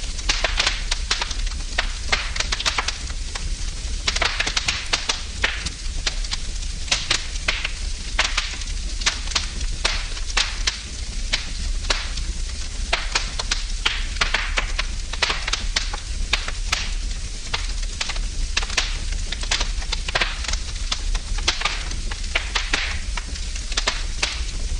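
Wood fire burning in a fireplace, crackling continuously with many sharp pops and snaps over a soft hiss, and a steady low hum underneath.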